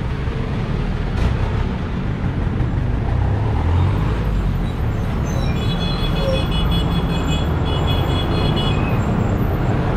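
Street traffic: motorcycle and tricycle engines running, with a steady low rumble. A high, pulsing tone sounds for about three seconds a little past the middle.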